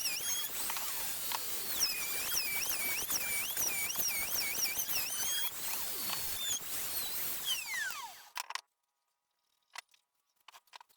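Electric router cutting a profile along a wooden frame: its high motor whine dips and recovers in pitch again and again as the bit bites into the wood. About seven and a half seconds in it is switched off and the whine falls away as it spins down, followed by a few light clicks.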